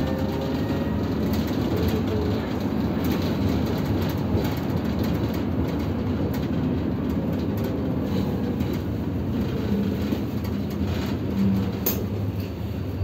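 Interior of a moving electric city bus: a steady rumble of road and running noise with small rattles and knocks, and a faint motor whine that slides in pitch as the bus changes speed.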